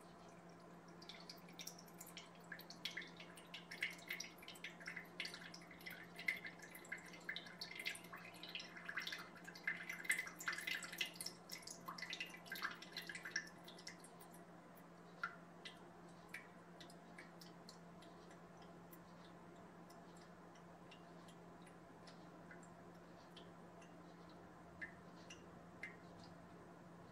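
Water dripping through a pin-pricked coffee filter from an upturned mason jar into a ceramic bowl, draining the soak water from sprouting seeds. Quick drips come thick and fast for the first dozen seconds or so, then slow to occasional single drops.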